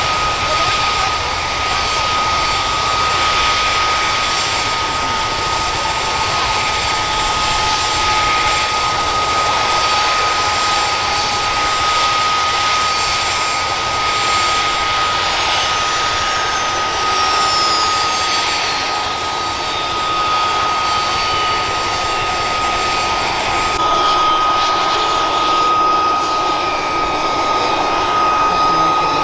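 Boeing CH-47F Chinook's Honeywell T55 turboshaft engines running on the ground: a steady high turbine whine over a broad rushing noise, with a fainter falling whine about halfway through.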